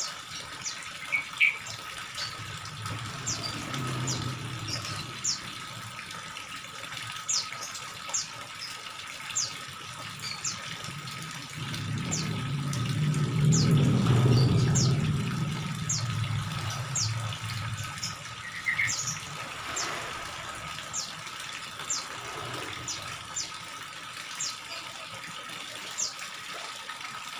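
Water from a hose pouring and splashing into a koi tank, with sloshing as a plastic bag of koi is dipped and emptied into the water, loudest about halfway through. Short high chirps repeat roughly once a second throughout.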